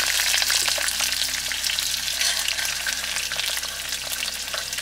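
Capsicum and onion pieces sizzling and crackling steadily in hot oil in an aluminium camping pot, being half-fried.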